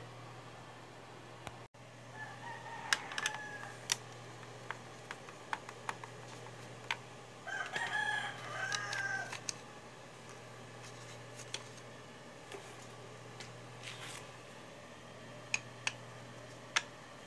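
A rooster crowing twice in the background: a fainter call about two seconds in and a louder one, about two seconds long, near the middle. Scattered light clicks and taps come from screws and plastic parts as an Epson L1300 printer is taken apart.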